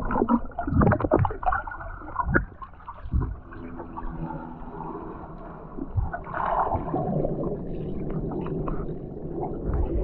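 Muffled water gurgling and sloshing picked up by a camera held under the water's surface, with a few dull knocks.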